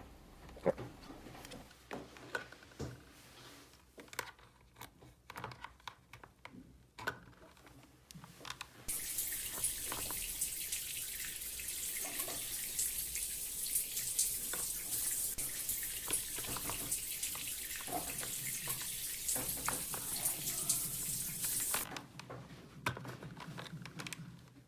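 Water running in a steady stream for about thirteen seconds, starting about nine seconds in and stopping shortly before the end, with small plastic handling clicks and taps before and after.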